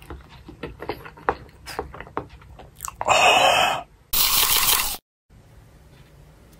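Crunchy chewing: a run of small crisp clicks of food being bitten and chewed. About three seconds in, two loud hissing bursts of about a second each follow one another.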